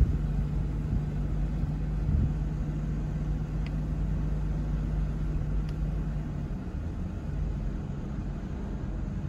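Car driving slowly on hard beach sand, heard from inside the cabin: a steady low engine hum and tyre rumble, the hum falling away about two-thirds of the way through.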